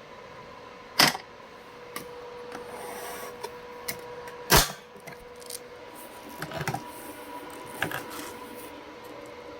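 Handling noise: two loud sharp clicks or knocks, about a second in and again about four and a half seconds in, with a few softer clicks and rattles between and after them, over a faint steady hum.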